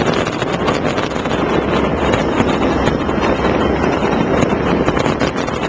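Fireworks display going off in a dense, continuous rumble with fine crackling throughout, steady and loud, with no single standout boom.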